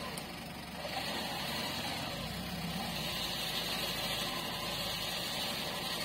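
UAZ off-road vehicle's engine idling steadily.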